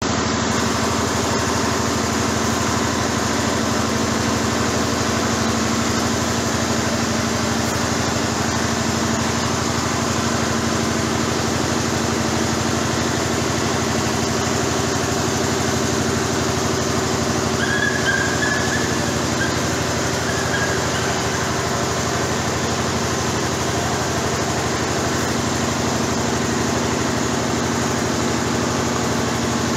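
Steady drone of small-engine machinery running at constant speed while a hot-wedge welder crawls along an HDPE geomembrane seam. A brief high chirp comes about two-thirds of the way through.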